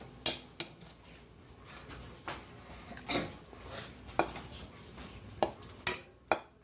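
Spoon clinking against a soup bowl: a series of irregular, sharp clicks, the loudest near the end.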